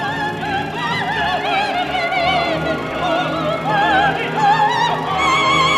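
A coloratura soprano singing opera in a high register, with a wide vibrato and quick ornamented runs. Steady instrumental accompaniment plays underneath.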